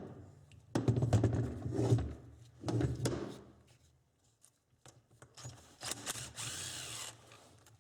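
A small power tool runs in two short bursts, the first about a second long and the second briefly, a second or so apart. A fainter hiss follows near the end.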